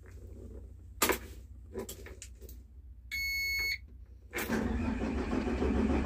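A click about a second in, then a short electronic beep lasting under a second, a little after three seconds. At about four and a half seconds the Tadano GT-600EX truck crane's diesel engine starts and keeps running.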